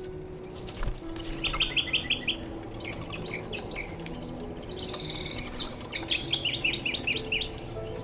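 A flock of crested pigeons at a seed feeder: wings flapping as birds land and take off, with two quick runs of high, rapidly repeated whistling notes, one about a second and a half in and one about six seconds in.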